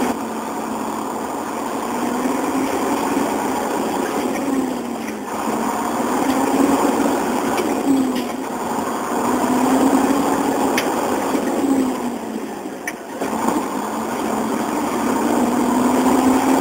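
Truck engine accelerating through the gears: its pitch climbs for a few seconds, then falls back as each upshift is made, about every three to four seconds.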